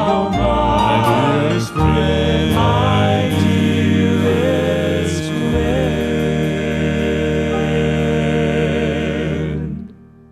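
Male gospel quartet singing the closing phrase of a song in four-part harmony, then holding the final chord until it stops abruptly near the end.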